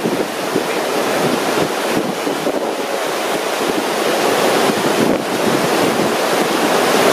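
Loud, steady rush of a big river rapid's whitewater churning through a surfing hole, with wind buffeting the microphone.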